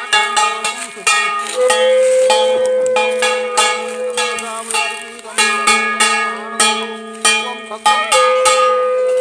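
Conch shell blown in two long steady notes, the first about a second and a half in and the second near the end, over rapid ringing strikes of metal puja bells. This is the conch-and-bell sounding of a Hindu puja ritual.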